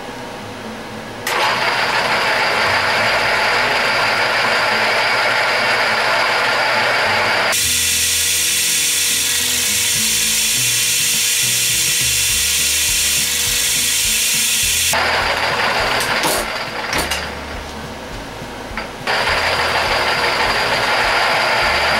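Drill press running with its twist bit boring into a metal bar. The noise comes in sharply about a second in and turns harsher and higher-pitched partway through. It drops away for a few seconds with a few clicks, then starts again near the end.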